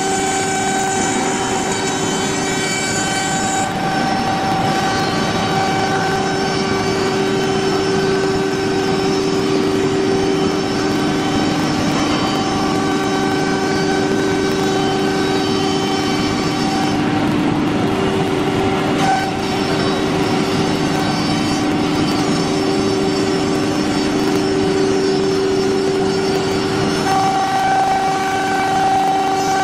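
Wood CNC router running: a steady whine from the spindle over a haze of cutting noise, its tones shifting slightly now and then.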